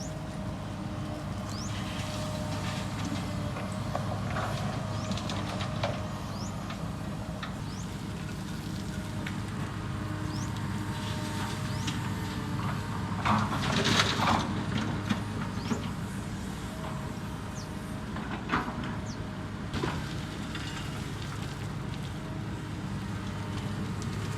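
Heavy construction machine's engine running steadily, with clanking knocks in a cluster a little past the middle and two more single knocks later.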